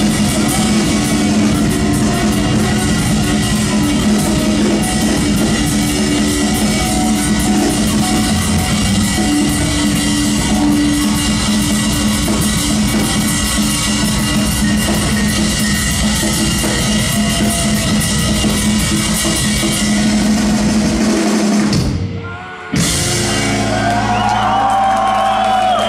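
Live rock band playing loud through a club PA, with a drum kit hitting hard under guitar and bass. Near the end the sound cuts out for under a second and comes back with shouts and whoops from the crowd over the band.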